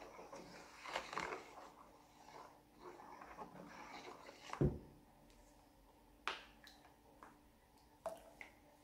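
Faint pouring and stirring of liquid detergent into a foamy soap mixture in a plastic basin, with a plastic spatula. A single dull knock about halfway through is the loudest sound, followed by a few light clicks near the end.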